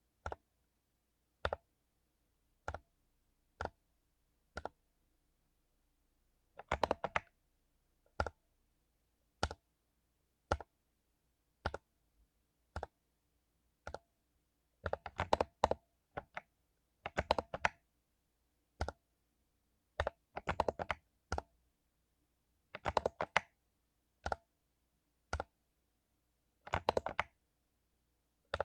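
Mechanical keyboard with lubed Cherry MX Silver linear switches being typed on: single keystrokes about a second apart, broken by several short flurries of rapid presses.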